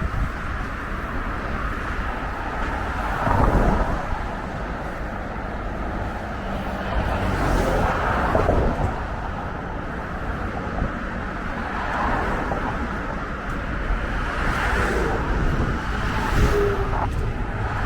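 City road traffic: a steady rumble with cars passing now and then, the loudest pass about three and a half seconds in.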